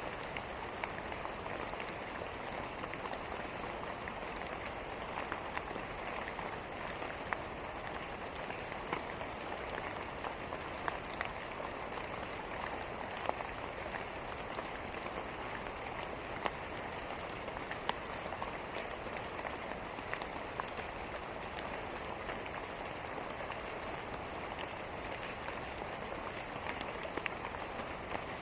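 Steady rain falling on a surface, an even hiss with scattered sharper drop hits throughout.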